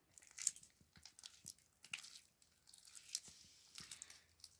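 Hand kneading freshly activated PVA-glue slime in a bowl: faint, irregular sticky squelching and crackling, with a few louder snaps.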